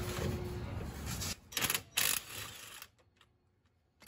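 Craftsman cordless power tool whirring briefly as it spins out the last driveshaft flange bolt, followed by two sharp clacks.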